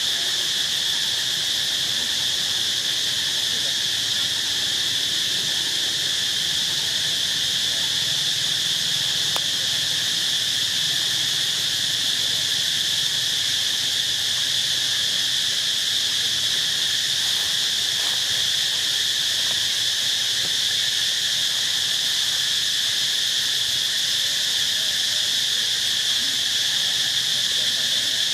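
Steady insect chorus in the trees, a continuous high-pitched drone that holds at an even level throughout.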